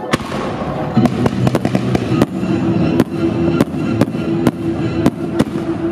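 Fireworks display: aerial shells and comets going off in a quick string of sharp bangs, two or three a second, over music with sustained tones.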